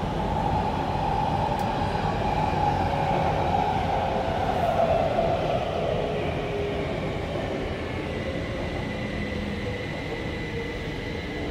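Kaohsiung MRT train heard from inside the passenger car: a steady rumble of wheels on rail that eases as the train slows on its approach to a station. A thin, high, steady whine comes in about two-thirds of the way through.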